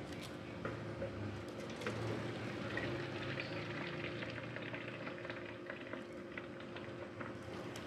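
Freshly boiled spaghetti and its hot cooking water pouring from a pan into a perforated aluminium colander: a steady splashing, draining hiss with a few light clicks.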